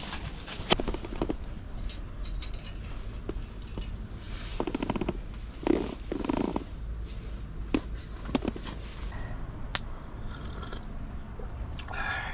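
Scattered knocks and clicks of things being handled, over a steady low rumble.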